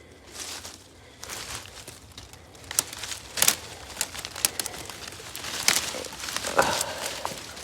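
Footsteps crunching through dry leaves and brush, with briars and twigs rustling and crackling in irregular bursts, busier in the second half.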